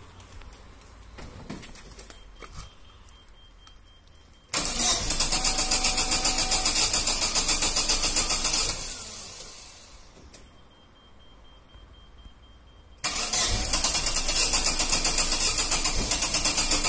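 Starter motor cranking a cold flex-fuel car engine in two long spells of about five pulses a second, the engine not catching, with its cold-start reservoir holding ethanol instead of gasoline. Before each spell a faint, steady high tone sounds.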